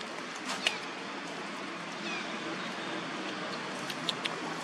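Macaques giving a few short, high squeaks, one falling in pitch about two seconds in, over a steady background hiss.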